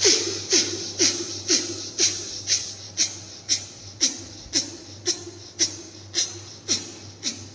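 Forceful rapid breathing through the left nostril alone, with the right nostril held closed, as in Surya Bhedi pranayama. Sharp nasal breaths go in and out about twice a second in an even rhythm. A faint steady low hum runs beneath.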